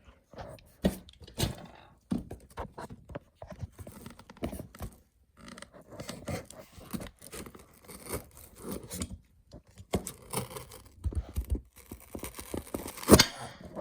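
A model airplane's box and packaging being worked open by hand: irregular scraping, tearing and tapping, with one loud sharp snap near the end.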